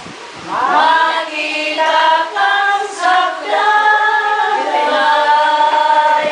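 A small group of older women singing together unaccompanied, ending on a long held note.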